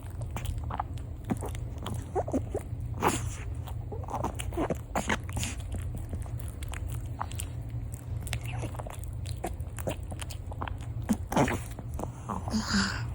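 A small dog chewing and crunching a crinkle-cut French fry: irregular wet chewing clicks and snaps, over a steady low hum.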